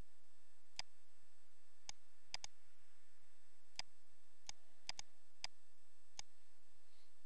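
Computer mouse clicking as vertices are selected and moved in Blender: about ten short sharp clicks at irregular intervals, some in quick pairs.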